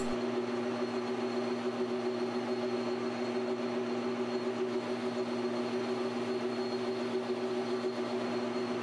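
Precision Matthews PM1236T gear-head metal lathe running steadily, a constant hum with two low tones, as a boring bar takes a light chamfering cut on a titanium ring held in the three-jaw chuck.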